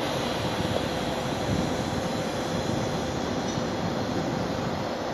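SNCF CC 40100-class electric locomotive rolling slowly past at close range: a steady rumble of running gear, with a faint steady whine over it.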